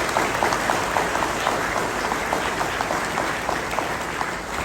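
An audience applauding, many hands clapping at once, gradually thinning toward the end.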